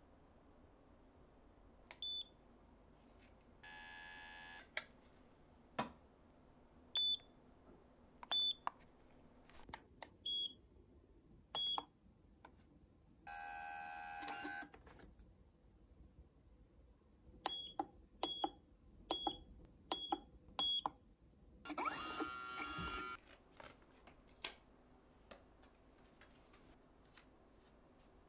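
Short electronic beeps, a quick run of them in the second half, with three brief bursts of a small machine whirring, each about a second long.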